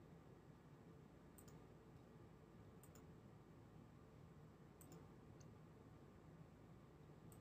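Near silence with a low steady hum, broken by a handful of faint computer mouse clicks, several of them quick press-and-release pairs, spaced a second or two apart.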